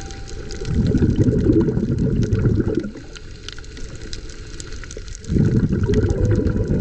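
Muffled underwater rushing of water, heard through a camera held below the surface: two deep swells of about two seconds each, the second starting about five seconds in, over a faint steady crackle of tiny clicks.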